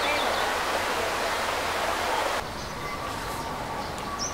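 Steady outdoor background hiss that drops abruptly to a quieter ambience about two seconds in, where the footage cuts; a bird chirps at the very end.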